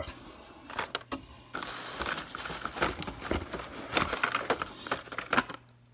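Hot Wheels blister packs being handled and flipped through in a box: plastic blisters and cardboard backing cards rustling, crinkling and clicking against each other in a quick irregular run.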